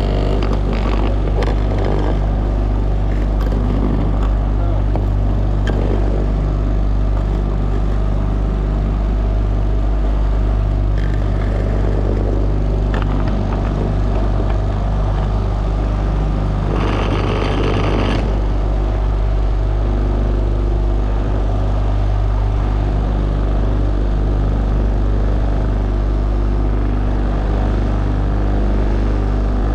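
Motorboat engine running steadily with a constant low drone, with wind and water noise over it. About seventeen seconds in comes a brief rush of louder noise, about a second long.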